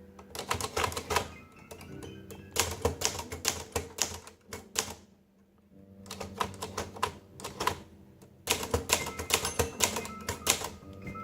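1965 Hermes 3000 portable typewriter being typed on: quick runs of sharp typebar strikes, with a brief pause about halfway through.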